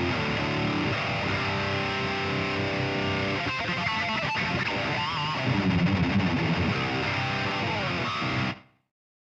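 Heavily distorted electric guitar playing metal chords and riffs through a prototype 22k high-output pickup, with a pitch bend about five seconds in. It cuts off suddenly near the end.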